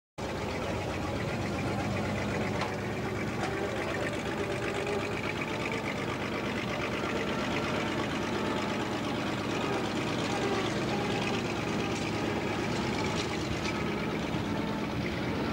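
Steady street ambience with a vehicle engine running and general bustle, an even background with no single loud event.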